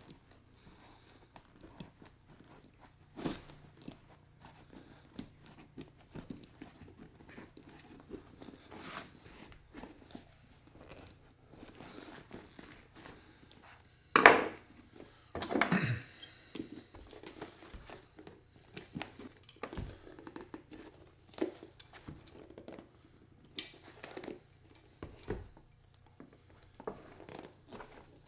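Worn rubber sole being pried, cut and torn off a Blundstone Chelsea boot with a knife and pincers: irregular scraping, cracking and tearing, with the loudest bursts a little past halfway through.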